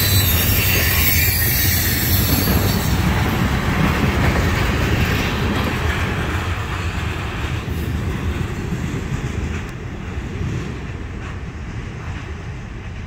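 Freight train of trash-loaded gondola cars rolling past and moving away: a steady rumble of wheels on rail, with high-pitched wheel squeal in the first few seconds, fading as the rear of the train recedes.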